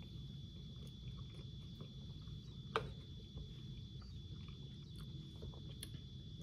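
Quiet room tone: a low steady background hum with a thin, steady high-pitched whine, a few faint clicks and one sharper click a little under three seconds in.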